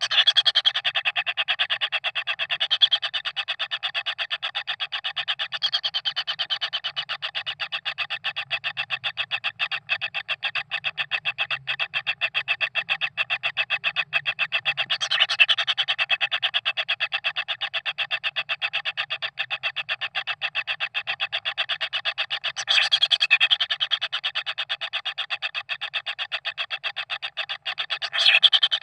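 Kingfisher nestlings begging for food: a steady, fast, rhythmic churring of rapid pulses, swelling louder briefly about a quarter of the way in, again past three-quarters, and near the end.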